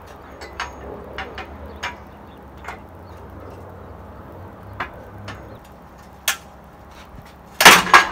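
Scattered metal ticks and clicks as a long bar is levered against the rear hub nut, over a faint low hum. Near the end comes a loud metallic clatter lasting about half a second, the welded-nut holding bracket snapping off under the rising tension.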